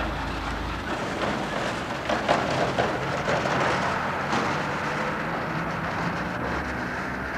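Outdoor street ambience through a camcorder microphone: a steady noisy hiss and rumble like distant traffic, with a low rumble fading out in the first second and a few short knocks about two seconds in.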